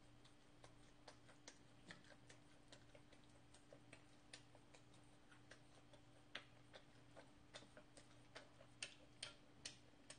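Faint, irregular wet clicks of a mouth chewing sticky, chewy rice cake (chapssal-tteok), over a low steady hum.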